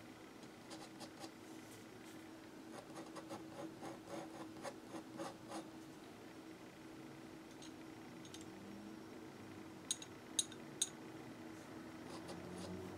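Glass dip pen's nib scratching across paper in a quick run of short strokes, a glass nib that writes a little scratchy. About ten seconds in come three sharp little clicks.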